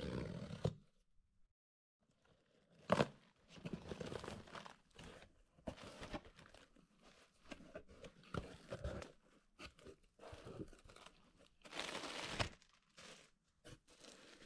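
Cardboard shipping box being opened by hand: a short burst of packing tape being slit at the start, then irregular rustling and scraping of cardboard flaps and crinkling of plastic air-pillow packing and bubble wrap, with a sharp crack about three seconds in.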